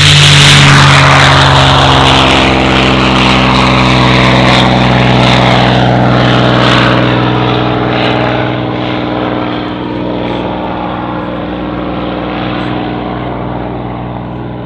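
P-51D Mustang's Packard Merlin V-12 engine at full takeoff power as the fighter lifts off and climbs away, a deep steady propeller-engine drone. Loudest about a second in, then fading steadily as the aircraft recedes.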